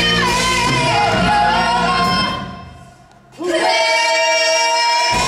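Live musical-theatre rock number: singing over a band. A little past halfway the sound drops away briefly, then a voice slides up into a long held note as the music comes back in.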